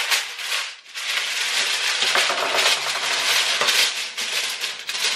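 Clear plastic bag crinkling and rustling as it is pulled open and handled, a dense crackle with a brief lull about a second in.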